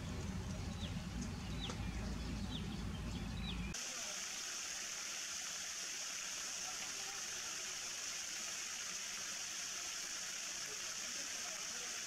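Outdoor field ambience. At first a low rumble runs under a short falling chirp repeated every half second or so. Nearly four seconds in this cuts off and a steady high-pitched hiss takes over.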